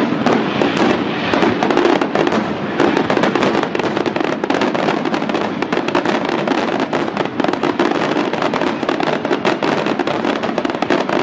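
Fireworks display: aerial shells and ground effects bursting in a dense, unbroken barrage of rapid bangs.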